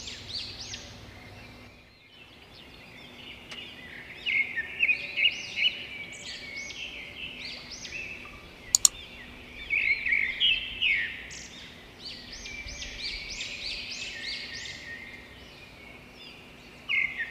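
Many small birds chirping and twittering, in quick clusters of sweeping calls that come and go. A sharp click sounds about halfway through.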